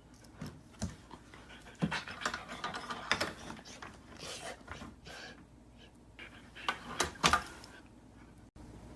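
A dog panting, with irregular short breaths and a few sharper clicks.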